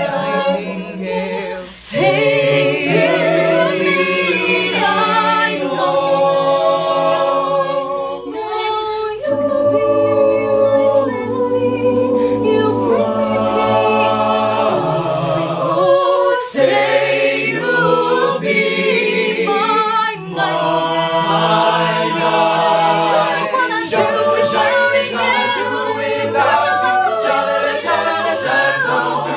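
Mixed-voice a cappella group singing in harmony, holding sustained chords that change every second or two.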